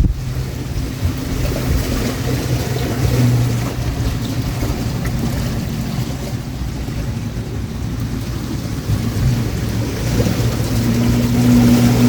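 Motorboat engine running steadily on the lake, its hum growing louder near the end, under wind buffeting the microphone.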